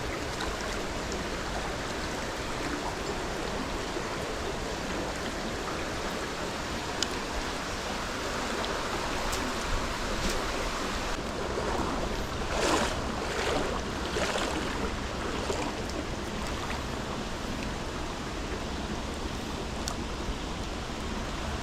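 Steady rushing of a small stream's flowing water, with a few brief louder splashes about twelve to fifteen seconds in and some scattered sharp clicks.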